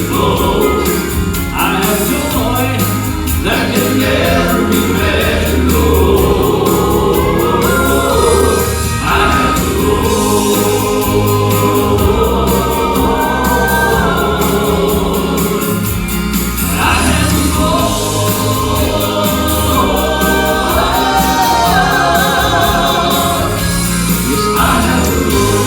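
Gospel vocal quartet singing in harmony over instrumental accompaniment with a steady bass line, drawing out long held notes.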